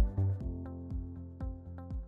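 Electronic outro music with sustained chords and a steady drum beat, growing quieter as it winds down.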